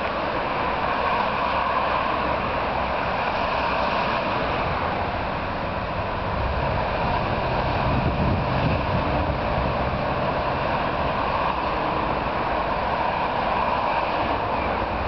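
Steady road traffic noise from vehicles crossing a road bridge inside its curved noise-barrier enclosure. A heavier low rumble comes about six to nine seconds in as a box truck passes. The uploader says the barriers do not give the promised sound reduction.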